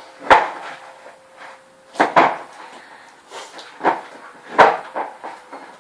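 Slime being squeezed and worked in the hands, giving sharp pops and squelches about every second or two, the loudest about a third of a second in and just before five seconds.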